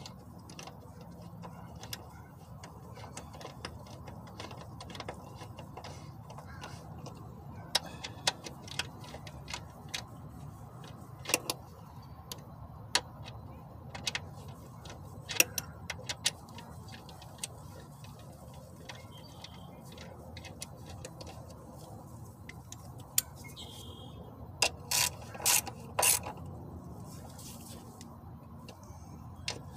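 Hand tools clinking on metal under the hood during starter work, with a few short runs of socket-wrench ratchet clicks near the end, over a steady low hum.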